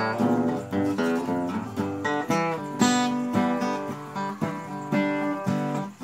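A steel-string acoustic guitar played solo in an instrumental passage of a country-blues song, with a mix of strummed chords and picked notes.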